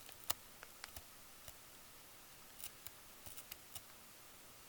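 Faint, scattered small clicks and scratches of a tool picking at residue burnt onto a circuit board.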